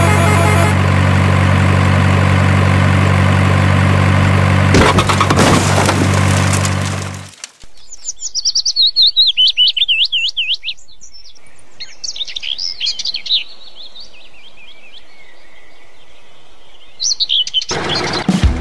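A truck engine sound running steadily at a low pitch, with a clatter about five seconds in, cutting off suddenly after about seven seconds. Then birds chirping in quick warbling phrases, and music with a beat starts near the end.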